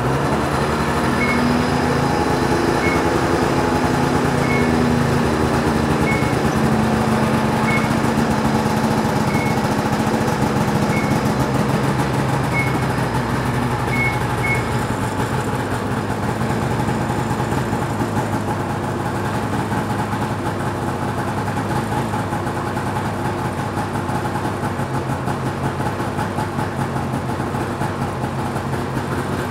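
Ski-Doo snowmobile engine running steadily at idle just after being started. Through the first half there is also a faint tick about every second and a half.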